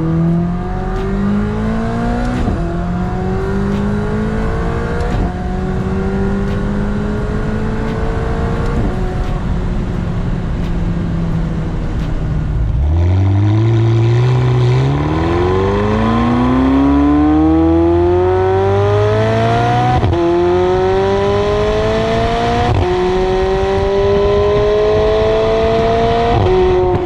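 McLaren 720S twin-turbo V8 through its stock exhaust, accelerating through the gears: the engine note climbs and drops back at each upshift. Three quick shifts come in the first nine seconds, then it pulls hard from low revs about thirteen seconds in, with further upshifts.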